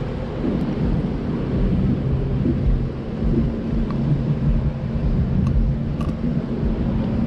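Low rumble with a steady engine hum at a fixed pitch, and wind buffeting the microphone.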